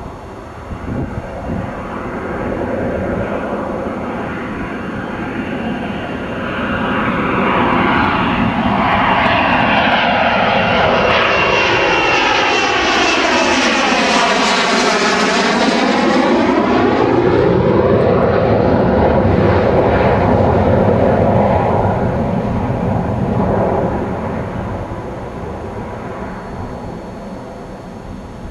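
A fixed-wing aircraft flying past overhead: its engine noise builds, stays loud for over a quarter of a minute with a sweeping, phasing character as it passes closest about halfway through, then fades away.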